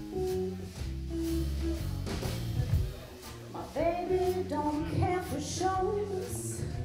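Live jazz band playing, with electric bass, hollow-body electric guitar and a drum kit with cymbals. About halfway through, a woman's voice comes back in, singing over the band.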